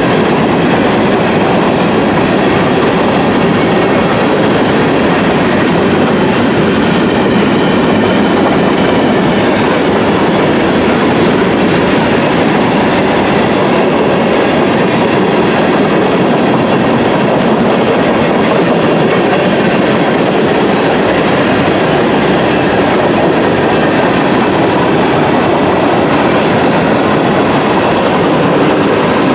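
Cars of a Norfolk Southern mixed freight train rolling past, steel wheels running on the rails with a loud, steady rumble.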